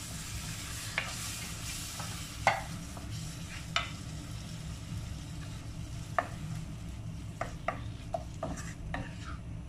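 A spatula stirring and scraping tomato paste and spice masala as it fries in a nonstick pan, with a light sizzle. There are irregular scrapes and taps against the pan, the sharpest about a third of the way in, over a steady low hum.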